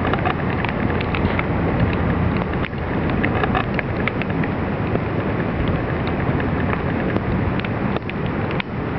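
Flooded creek rushing steadily in the rain, with a constant low hum beneath and scattered small ticks.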